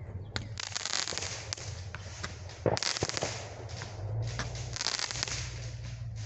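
Fireworks going off: sharp bangs followed by bouts of dense crackling, three crackling bursts of about a second each.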